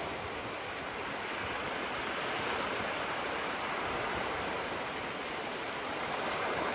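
Gentle sea waves washing onto the shore: a steady surf hiss that swells a little near the end.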